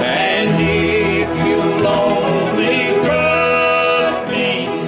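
Two men singing a country gospel song in the bluegrass style to a strummed acoustic steel-string guitar.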